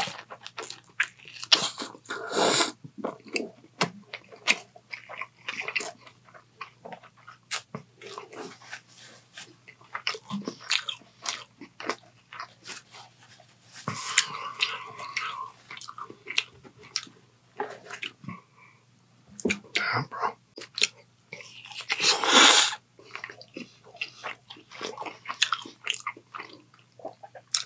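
Close-miked biting and chewing of a jus-dipped sandwich, with many small wet mouth clicks. There are three louder noisy moments, about two and a half, fourteen and twenty-two seconds in.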